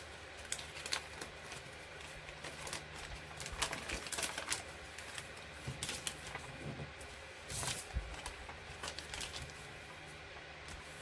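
Hands handling paper and small plastic items on a desk: irregular clicks and crinkling rustles, with a longer rustle about three-quarters of the way through.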